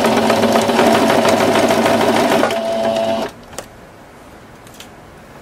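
Electric domestic sewing machine stitching through quilted fabric, running steadily for about three seconds and then stopping; a light click follows in the pause.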